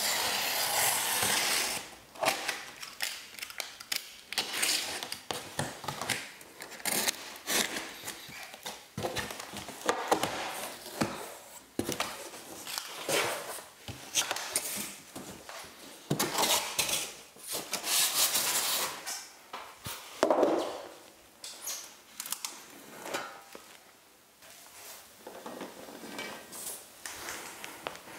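A utility knife slicing along the packing tape of a large cardboard box, then the cardboard flaps being pulled open and handled: a series of irregular scrapes, rustles and knocks of cardboard.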